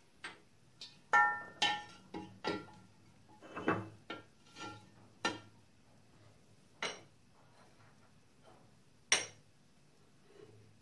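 Steel 1-2-3 blocks and a metal exhaust manifold clinking and knocking on a milling machine's steel table as they are set in place: about a dozen sharp metal clinks, some ringing briefly. The loudest comes about a second in and another near the end.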